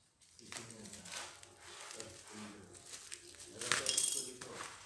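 Black plastic bag wrapping crinkling and tearing as it is ripped off a pair of sandals, in irregular crackles with the loudest burst about four seconds in.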